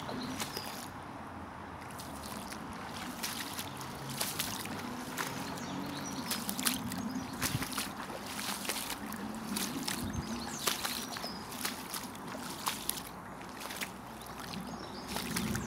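Footsteps wading through shallow floodwater over grass, each step a short splash or slosh in a slow, uneven series of about one a second.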